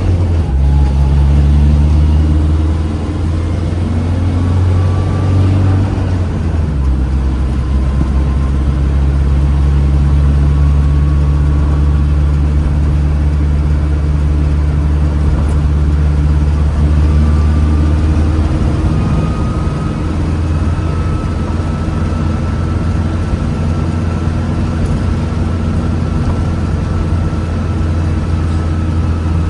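A 1970s car driving along, its engine running with a strong low drone that shifts pitch a couple of times, about 7 and 19 seconds in. A faint whine climbs slowly in pitch as it goes.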